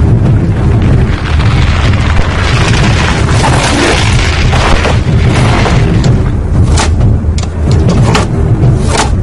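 Film battle-scene sound mix: a loud, deep, continuous rumble, with a rising whoosh that swells over a few seconds and then dies away. A string of sharp clicks and knocks follows near the end.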